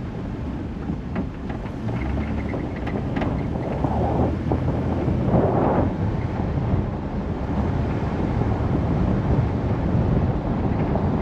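A vehicle driving along an unpaved gravel forest road: a steady rumble of tyres and engine, with some wind noise on the microphone. The rumble gets rougher and louder for a couple of seconds about four seconds in.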